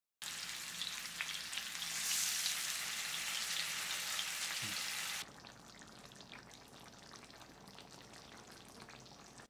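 Marinated fish pieces sizzling as they shallow-fry in hot oil, a dense, steady crackle. About five seconds in it cuts to a much quieter, softer sizzle as the fish simmers in curry gravy.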